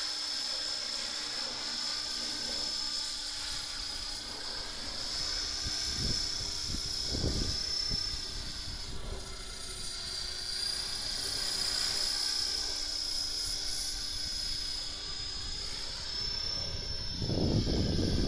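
An Align T-Rex 500 flybarless electric RC helicopter in flight: a steady high-pitched motor and gear whine that wavers slightly in pitch, over the whir of the rotor blades. A few low rumbles come and go, the loudest near the end as the helicopter comes close and low.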